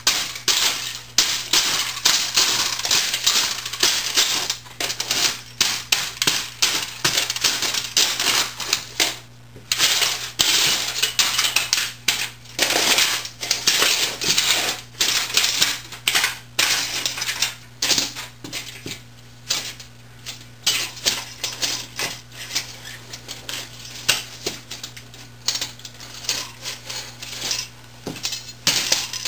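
Heavy leather boots stamping and grinding on the broken pieces of an old word processor: a rapid, irregular run of plastic cracking, crunching, and metal parts and keys clinking and clattering underfoot.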